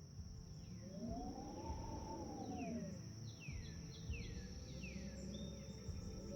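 Bush ambience: a steady high insect drone with a run of short, descending bird calls, under a soft tone of ambient music that swells up and falls away about a second in.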